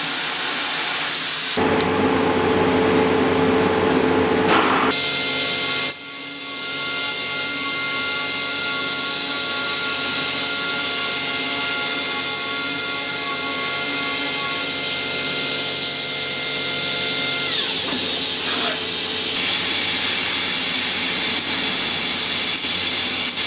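Kitamura Mycenter HX250G horizontal machining center milling a metal workpiece: the spindle runs with a steady high whine of several tones, which drops in pitch and dies away about 18 seconds in. An even hiss of coolant spray follows.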